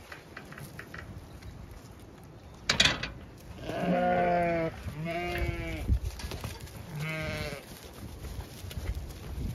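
Zwartbles sheep bleating three times, about four, five and seven seconds in; the first bleat is the longest and loudest. A brief sharp noise comes a second before the first bleat.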